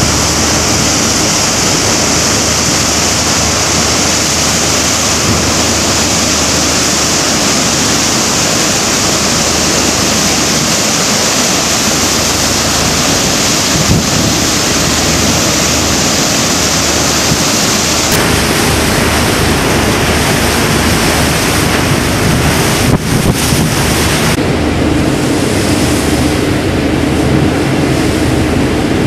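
Wind buffeting the microphone over the steady rush of choppy sea and the ferry's bow wave breaking along the hull. The higher hiss drops away about two-thirds through.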